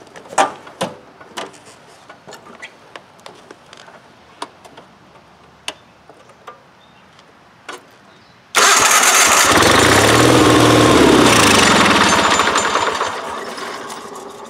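The 1990 Wheel Horse 520H garden tractor's engine starts suddenly about eight and a half seconds in, running loud and fast on starting fluid. It then slows and quietens near the end as the fluid burns off, because it is only running on the starting fluid. A few light clicks come before it.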